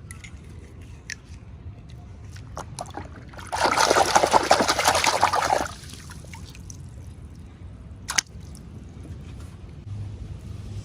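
Plastic packaging crinkling in a dense crackling burst of about two seconds, between scattered single clicks of small plastic toy pieces being handled.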